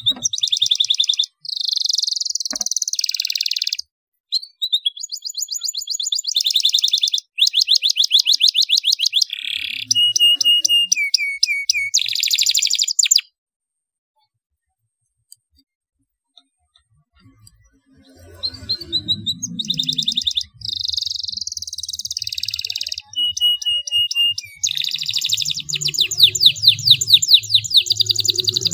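Domestic canary song: phrases of rapid rolling trills and chirps, broken by a silence of several seconds midway, then resuming with long fast trills.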